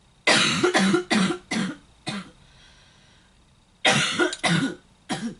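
A person coughing in two fits: a run of about five coughs, a pause of about a second and a half, then about four more.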